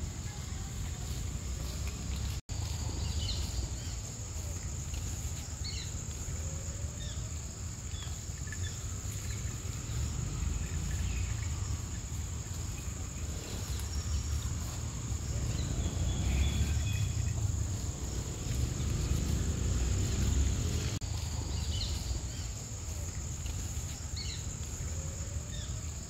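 Outdoor ambience: a steady high-pitched insect drone with scattered short high chirps over a low rumble. The sound drops out for an instant about two seconds in.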